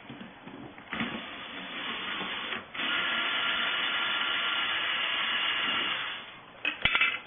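Cordless Bosch drill backing a screw out of the wooden egg-turner frame: a lighter run about a second in, then a steady whine for about three seconds that fades away, followed by a few short clicks near the end.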